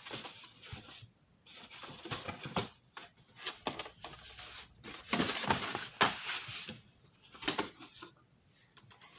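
Small hard plastic and metal parts of a model railroad passenger car being handled: irregular clicks, taps and short rustles, with brief quiet gaps between them.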